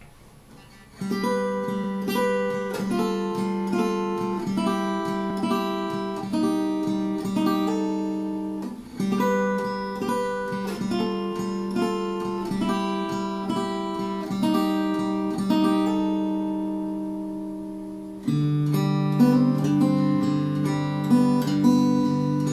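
K.Yairi MYT-1 small-bodied acoustic guitar, solid cedar top with mahogany back and sides, fingerpicked solo: a picked melody over a steady bass note, starting about a second in. The phrase starts over about nine seconds in, the notes are left ringing and fading out around sixteen seconds, then a louder passage with lower bass notes begins near eighteen seconds.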